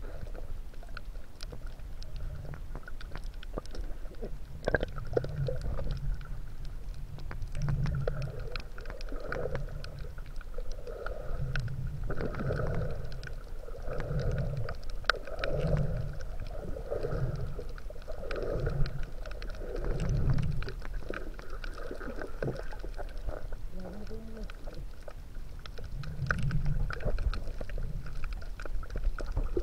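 Muffled underwater sound picked up by a submerged action camera in its housing: a low swishing of moving water that comes and goes about once a second or so, with scattered faint clicks.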